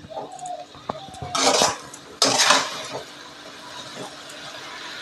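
Flat metal spatula scraping and clinking against an aluminium kadai as masala-coated potatoes and drumsticks are stirred while frying. There are a few strokes, the loudest about one and a half and two and a half seconds in, over a steady low hiss.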